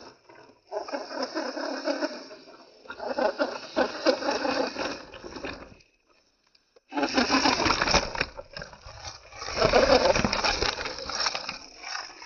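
Radio-controlled rock crawler driving over rocks: crunching and rattling of tyres and chassis on stone, in four bursts with short pauses.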